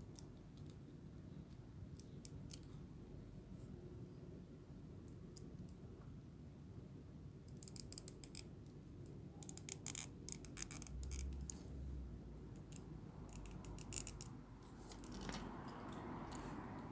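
Plastic joints and panels of a Takara Tomy Masterpiece MP-39 Sunstreaker Transformers figure clicking as it is transformed by hand. There are a few scattered clicks at first, then dense runs of rapid clicks in the second half.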